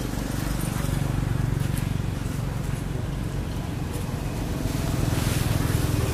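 A motor engine running, a steady low hum that swells about a second in and again near the end.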